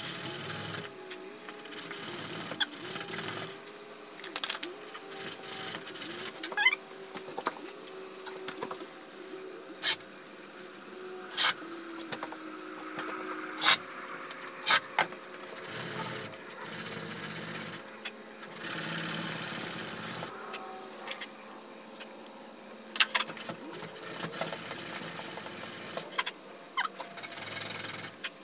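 A small cedar handle scale rubbed back and forth on a sheet of sandpaper to flatten it: several stretches of scraping strokes, each a second or two long, with pauses between them. Sharp clicks and light knocks of the pieces on the workbench come in between.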